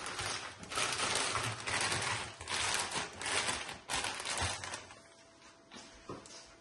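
Plastic snack-bar bags and clear plastic sheeting crinkling as hands press and arrange them on a tray, in several bursts that stop about five seconds in.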